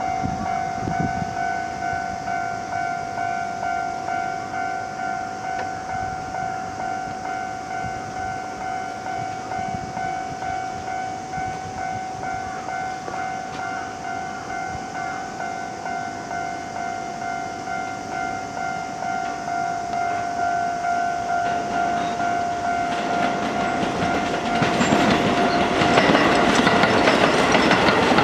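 Japanese level crossing warning bell ringing at a steady two dings a second. From about 23 seconds in, a Keio Line electric train comes through, its wheels clattering over the rail joints and growing loud enough to drown out the bell near the end.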